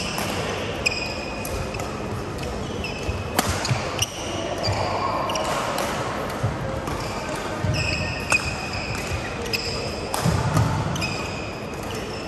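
Badminton shoes squeaking on the court floor: short, high squeaks again and again as players move, with a few sharp smacks of rackets striking shuttlecocks.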